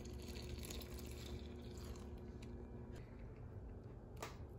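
Liquid poured from a glass measuring cup into a steel bowl of dry cake mix, a faint pour. A single sharp click about four seconds in.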